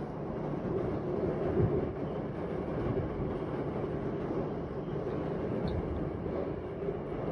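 Storm wind blowing steadily, a continuous low rush heard through window glass, with no sharp thunderclap.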